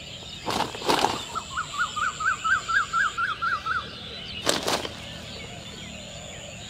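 A bird calling a quick run of about ten sharp rising notes, about four a second, with short noisy rushes of sound twice just before the call and once after it. A steady high thin whine sounds behind, breaking off about three seconds in.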